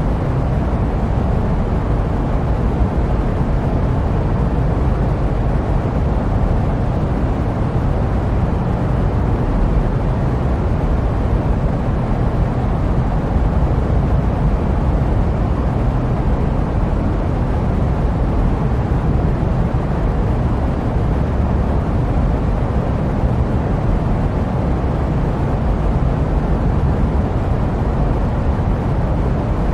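Steady jet airplane noise: a deep, even rumble with no changes, heaviest in the low end and thinning out in the highs.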